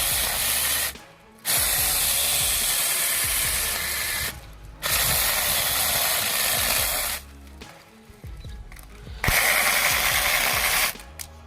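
Chainsaw cutting through wood in several bursts of a few seconds each, each starting and stopping abruptly.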